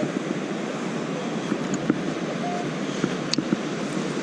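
Steady surf and wind noise, with one short metal-detector tone about halfway through and a few sharp clicks in the second half.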